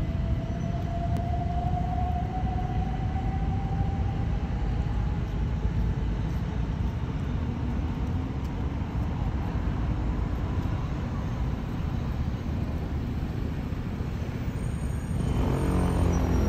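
Passenger jet flying low overhead on its approach to land: a steady, deep rumble of its jet engines that grows louder near the end.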